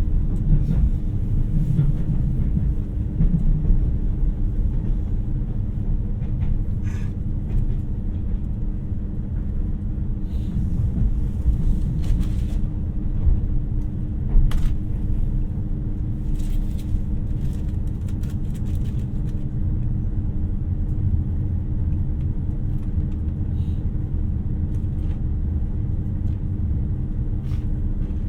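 Running noise of a 2700 series diesel limited express train: a steady low rumble of the wheels and underfloor diesel engines with a constant hum, and a few faint clicks.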